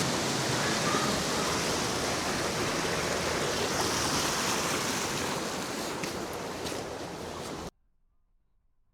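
Steady rushing roar of a nearby waterfall, slowly fading, then cut off abruptly about eight seconds in.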